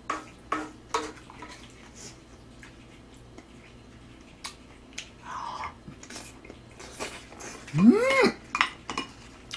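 A spoon and chopsticks click and scrape against a grill pan and dishes in scattered knocks. About eight seconds in comes a brief hum that rises and falls in pitch.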